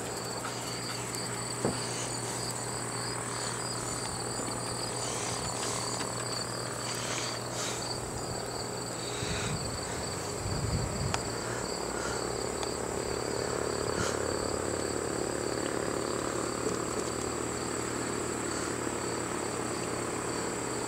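Steady chorus of chirping insects, a continuous high-pitched trill with a fine pulsing, and a brief low rumble about halfway through.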